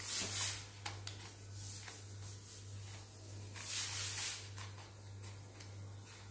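Plastic 3x3 puzzle cube being turned by hand: two short rasping flurries of turns, at the start and about four seconds in, with a few sharp clicks between, over a low steady hum.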